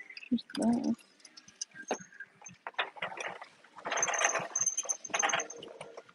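Shopping cart rattling and clicking as it is pushed along, with a nylon jacket in it rustling against the phone. There are scattered knocks and two louder stretches of rustle, near the start and again around the two-thirds mark.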